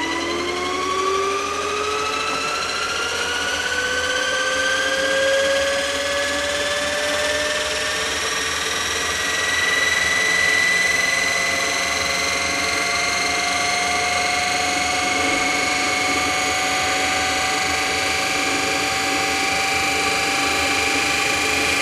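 Large compound-wound DC motor, rated for 220 volts DC but fed 24 volts from two 12-volt batteries, spinning up after switch-on. Its whine rises in pitch over the first ten seconds or so, then settles into a steady running whine.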